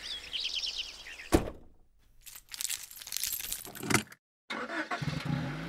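A montage of edited sound effects: brief bird chirps, then a sharp knock, a run of rattling and clicking, a sudden cut to dead silence, and low sustained music tones coming in near the end.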